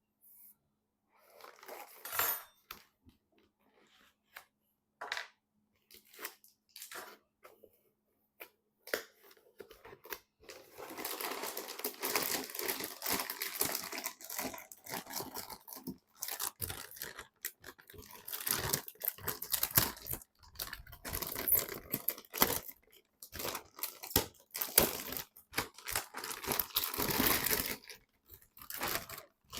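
Packaging being handled and opened: plastic and paper crinkling and tearing, at first in scattered short rustles and clicks, then in near-continuous rustling from about a third of the way in.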